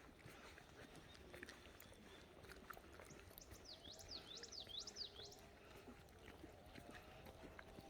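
Faint outdoor quiet with a few soft clicks, and about halfway through a bird gives a quick run of five or six sharply swooping high notes.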